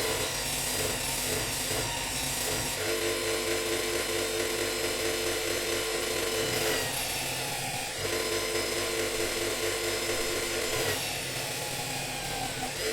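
Electric power tool running steadily while working a chisel, its sound changing briefly about three, seven and eleven seconds in.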